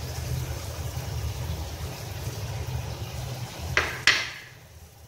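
A pan of pork, potatoes and carrots simmering on the stove, a steady low hum with faint cooking noise. Near the end come two sharp clacks close together, the second the louder, after which it goes quieter.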